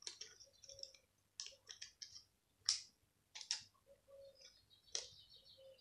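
Scissors snipping a small piece of paper: several separate short snips as a leaf shape is cut out.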